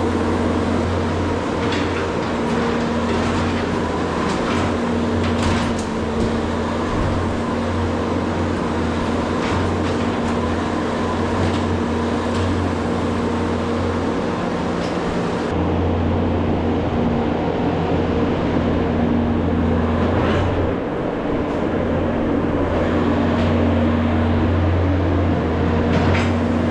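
A farm machine's engine running steadily under load, with a constant low hum and a few scattered knocks and clanks.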